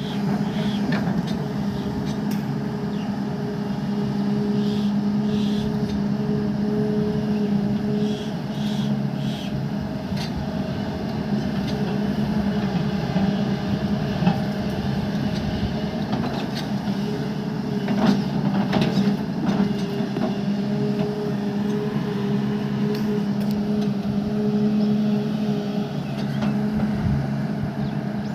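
Heavy construction machine's engine running steadily at a constant speed, with a few short knocks around the middle.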